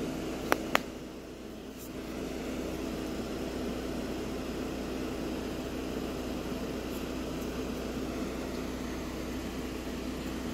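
A steady mechanical hum, with two sharp clicks close together about half a second in.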